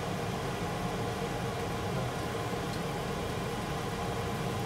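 Steady low mechanical hum with a hiss, unchanging throughout.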